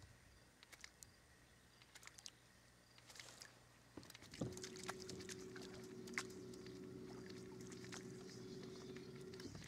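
Bow-mounted electric trolling motor on a fishing boat switching on about halfway through, running with a steady electric hum, and cutting off just before the end. Faint scattered clicks come before it.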